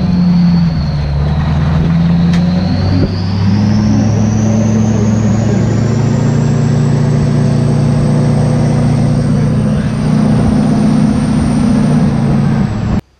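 LBZ Duramax 6.6-litre V8 turbodiesel pulling under acceleration, its turbocharger whistle rising steadily in pitch over the engine's low drone, then cutting off abruptly near the end.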